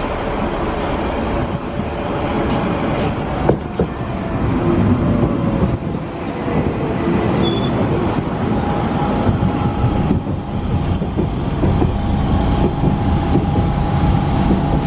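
London Underground Central Line 1992 Stock train arriving at the platform and braking to a stop, its wheels running on the rails with a whine that falls in pitch as it slows.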